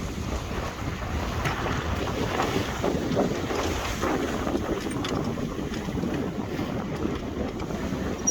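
Wind buffeting the microphone aboard a sailing yacht under way, with gusty rises, over the rush of water along the hull.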